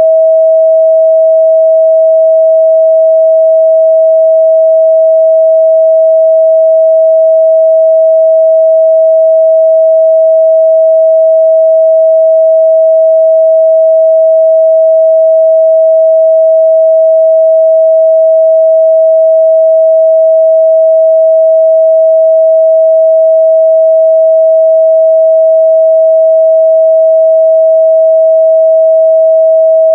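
A steady, loud 644 Hz sine-wave test tone, one pure pitch held unbroken.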